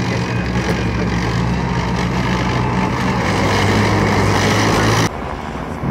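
CVR(T) tracked armoured vehicle driving fast over dirt, its engine running steadily under load with the tracks clattering. The sound cuts off abruptly about five seconds in.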